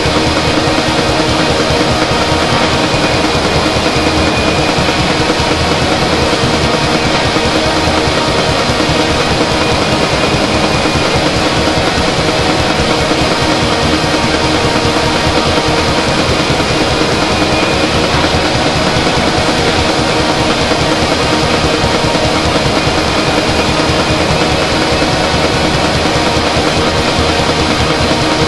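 Loud, unbroken droning music: many sustained tones layered over a steady hiss, with no beat and no breaks.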